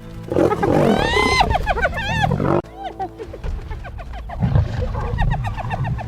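Wild animal calls: one long, loud pitched call that rises and falls, cut off sharply about two and a half seconds in, followed by a run of short repeated calls.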